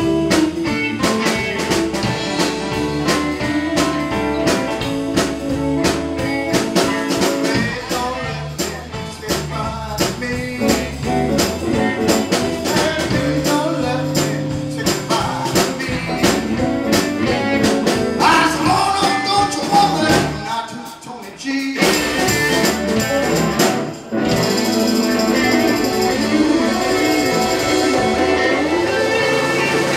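Live blues band playing: a drum kit and tambourine beat under bass, electric guitars and saxophone. About two-thirds through the band drops out for a moment, then comes back with lighter drums under sustained, wavering lead notes.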